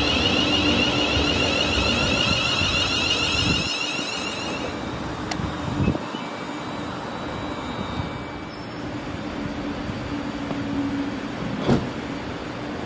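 London Northwestern Railway Class 350 Desiro electric multiple unit running past, with a high electric whine from its traction equipment over a steady lower hum. The whine stops about four to five seconds in, leaving a quieter steady rumble of the train on the rails. Two short sharp knocks come about six seconds in and near the end.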